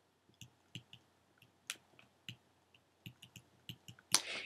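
Faint, irregular clicks and taps of a stylus on a tablet screen as words are handwritten.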